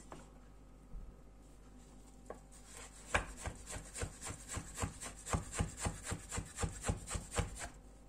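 Kitchen knife chopping beetroot into small cubes on a wooden cutting board: a few scattered taps, then from about three seconds in a quick run of blade strikes on the board, about five a second, stopping shortly before the end.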